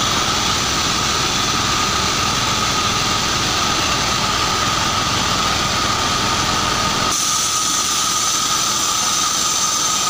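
Band sawmill running steadily with a high whine while a log is pushed by hand through the blade. About seven seconds in the sound changes abruptly: the low rumble drops away and a higher hiss comes up.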